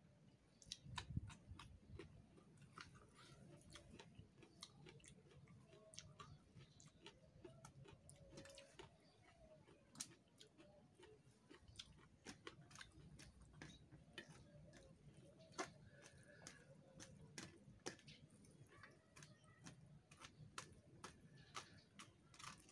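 Faint, irregular clicks of a bare hand mixing rice with raw vegetables and sambal on a metal tray, the fingers tapping and scraping against the metal.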